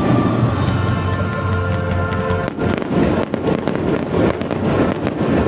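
Aerial fireworks shells bursting in a string of sharp bangs and crackles, with music playing underneath.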